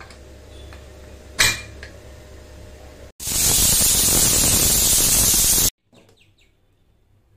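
Pressure cooker whistling: steam jets loudly from the weight valve as a hiss for about two and a half seconds, the sign that the cooker has reached pressure. Before it, a short clink about a second and a half in over a low hum.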